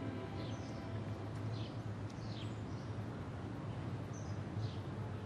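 Outdoor ambience: a steady low hum with small birds chirping now and then, short high chirps that slide downward, about one a second.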